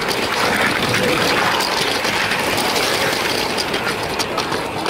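Lego train running along plastic track, heard from a camera riding on it: a steady rushing whir from the motor and wheels with many small rapid clicks.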